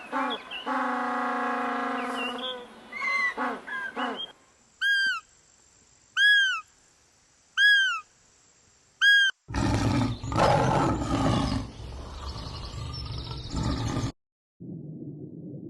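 A run of separate animal calls cut one after another: first a long, drawn-out pitched call with a few shorter calls after it, then four short chirps, each rising and falling in pitch, about a second and a half apart, then a loud, rough roar-like call lasting several seconds that cuts off suddenly.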